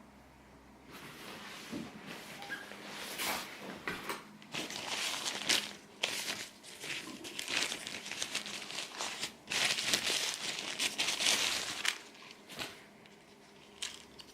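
Packaging being handled and crinkling: irregular rustling and crinkling with a few sharp clicks, starting about a second in and dying away about two seconds before the end.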